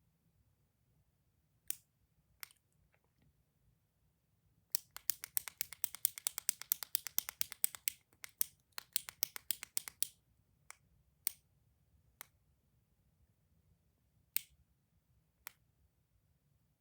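Toy clicking close up: two single clicks, then a rapid run of clicks, about ten a second, for some five seconds with a brief break, then single clicks spaced a second or two apart.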